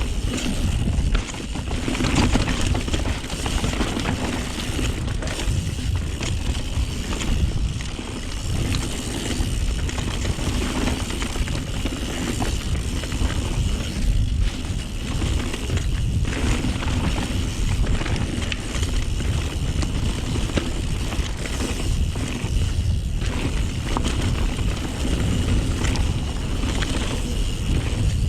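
Mountain bike (YT Jeffsy) riding fast down a dirt bike-park trail: tyre noise and a constant low rumble, with frequent clattering knocks from the bike over rough ground, heard from a chest-mounted action camera.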